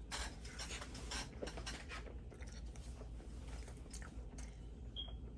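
A person chewing a big mouthful of spaghetti with meat sauce: many short, irregular mouth clicks.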